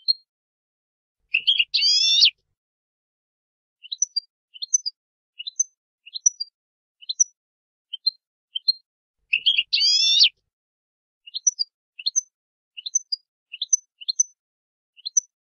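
European goldfinch calling: a string of short, separate high chirps, broken twice by a longer, denser phrase of about a second, once about a second and a half in and again near ten seconds in.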